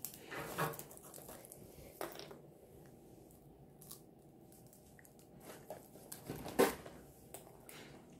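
Scattered small sounds of a baby eating soft puffed snacks at a plastic high-chair tray: short knocks and mouth sounds, the loudest about six and a half seconds in.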